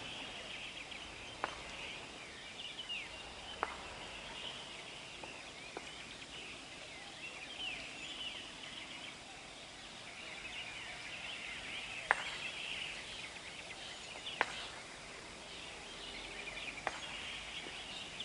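Faint open-air ambience: birds chirping in a high band, with a sharp short tick every two or three seconds.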